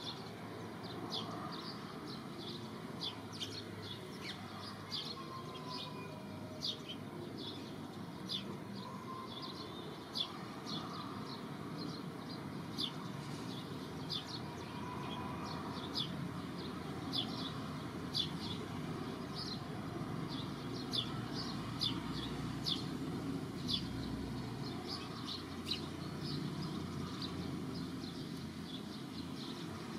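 Small birds chirping: quick, high, sharp chirps, several a second and irregular, over a steady low outdoor background rumble.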